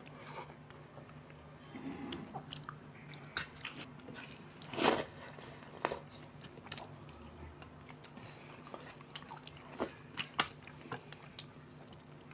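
Two people eating rice and curry with their hands from steel plates: scattered chewing and small clicks of fingers and food on the plates, with one louder sound about five seconds in, over a low steady hum.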